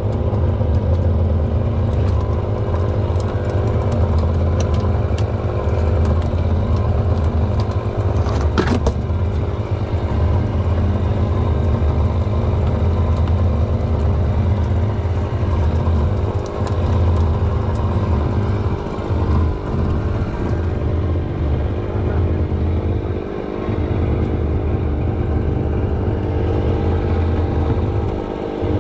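An engine runs steadily at an even speed throughout. There is one brief sharp knock about eight and a half seconds in.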